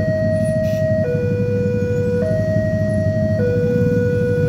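Railway level-crossing warning alarm sounding a two-tone signal, a higher and a lower tone alternating about every second, which warns that a train is approaching and the barriers are down. A steady low rumble of waiting traffic runs beneath it.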